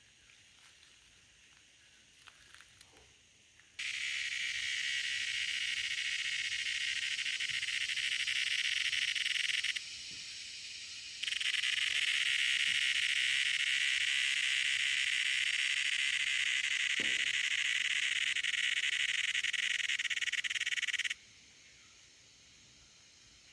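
A cicada calling: a loud, steady, high-pitched buzz that starts abruptly about four seconds in. It weakens for a second or so near the middle, then comes back and cuts off sharply near the end.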